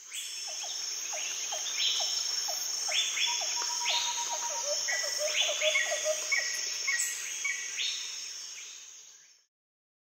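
Many short falling chirps and repeated short whistled notes over a steady high-pitched shrill drone, like birds and insects; it fades out about nine seconds in.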